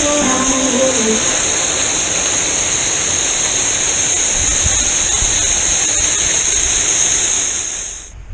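Waterfall rushing: a steady, hissing rush of falling water that fades out near the end.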